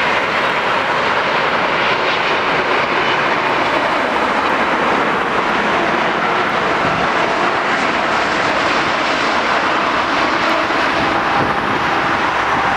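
Jet airliner engines running, a loud, steady rushing noise that holds an even level throughout.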